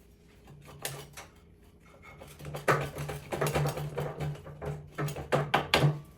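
Light hammer taps and metal clicks on a dirt bike's rear axle bolt as it is driven through the hub and swingarm while the wheel is wiggled into line. A few taps at first, then a quicker irregular run of knocks for the last few seconds.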